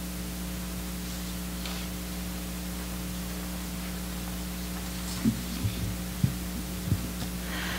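Steady electrical hum from the sound system, with a few low thumps about five to seven seconds in as the lectern's gooseneck microphone is handled and adjusted.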